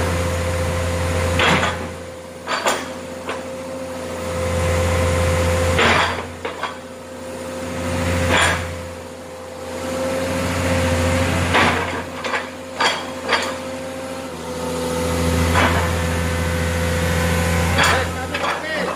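Komatsu PC130 excavator's diesel engine running, its low note swelling and easing every few seconds as the hydraulics work the log grapple. Sharp metallic clanks from the grapple and its linkage come at irregular intervals, about nine times.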